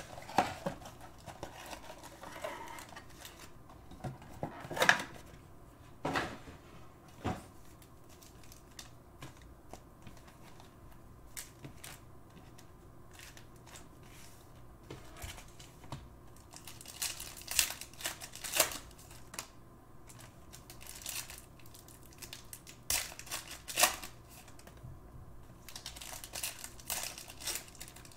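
Plastic wrapping and foil trading-card packs crinkling and rustling in short bursts as a card box is unwrapped and its packs are handled, with a few sharp clicks.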